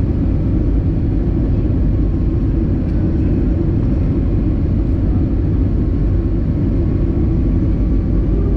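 Steady low rumble heard inside the cabin of an Airbus A320 near the runway: jet engine and airframe noise holding an even level.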